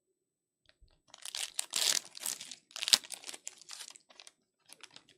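Wrapper of a pack of trading cards being torn open and crinkled: a dense run of crackling for about three seconds, then a few light rustles and clicks near the end.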